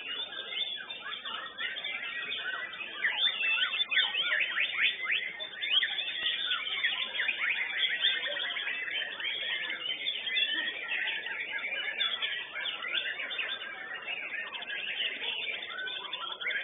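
White-rumped shama (murai batu) singing without a break in a fast, varied run of whistles and chirps: full contest song.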